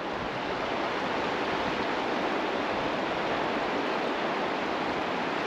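River current flowing steadily over rocks: an unbroken rushing of water that stays even throughout.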